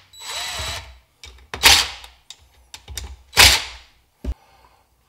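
Cordless drill/driver running in three short bursts, about half a second each, backing out the bolts of a two-stroke KTM 85 cylinder's power valve cover, with a sharp click a little after four seconds.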